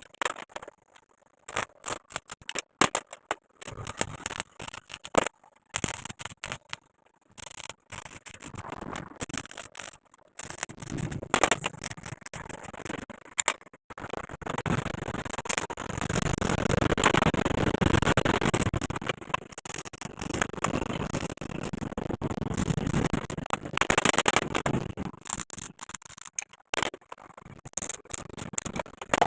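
Steel fabrication work on a metal door: irregular clicks, knocks and scraping with short pauses. From about halfway in, a denser rough noise runs for roughly ten seconds before the knocks return.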